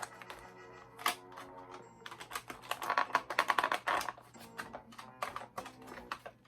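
Rapid clicking and crackling of stiff plastic toy packaging being handled and worked apart to free an action figure, busiest about two to four seconds in, with background music underneath.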